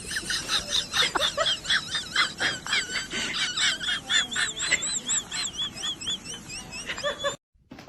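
A bird chirping: a rapid run of short, high, arched chirps, several a second, that stops shortly before the end.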